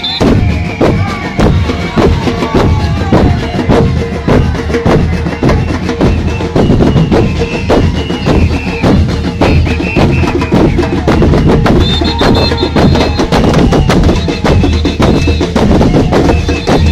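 Murga percussion: bombos con platillo (bass drums with a cymbal mounted on top) beating a loud, continuous carnival rhythm of dense, closely spaced hits.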